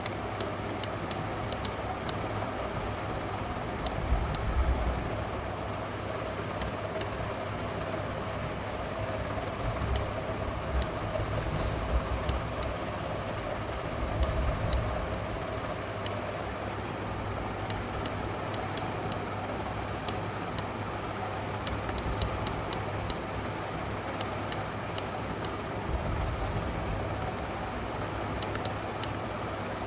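Computer mouse clicking many times at an irregular pace, sometimes in quick pairs, as short smudge-tool strokes are made, over a steady background hum. A few soft low thuds come around 4, 10, 14 and 26 seconds in.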